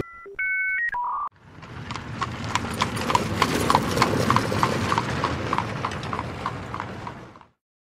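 Horse-hoof clip-clop sound effect: even, trotting hoofbeats at about three to four a second over a hissy background, fading out near the end. A short three-note electronic chime comes just before it.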